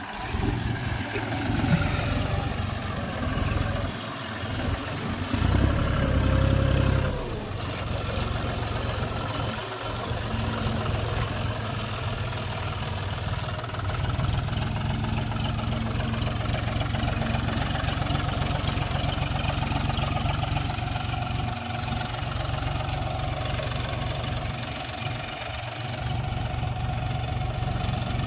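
Diesel engine of a backhoe loader or tractor running steadily while working, swelling louder for a couple of seconds about five and a half seconds in.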